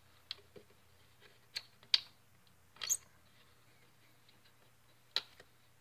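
Scattered light clicks and taps of hands handling the belt ends against the metal bonding jig, with a short scrape about three seconds in, over a faint steady low hum.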